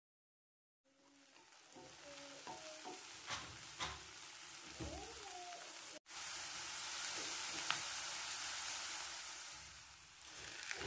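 Chopped onion and green onion sizzling in a frying pan while being stirred with a wooden spatula. The sizzle starts about a second in and builds. A brief dropout comes about six seconds in, and the sizzle is louder after it.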